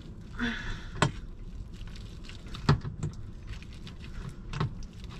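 Potato masher mashing bananas in a bowl: three heavy thumps of the masher against the bowl, roughly a second and a half apart, with a lighter knock and quieter mashing noise between.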